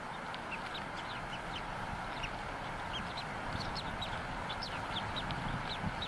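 Newly hatched bald eagle chick peeping to beg for food: many short, high, rising chirps in quick irregular series, over a steady rush of wind.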